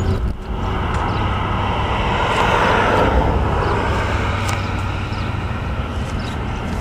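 Vehicle noise: a steady low engine hum under a rushing sound that swells to its loudest about two and a half seconds in and then slowly eases, like a vehicle passing.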